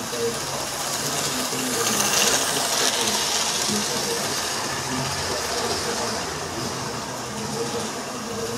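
Model train running along the layout's track: the steady running noise of its motor and wheels on the rails is loudest about two to three seconds in as it passes, then fades.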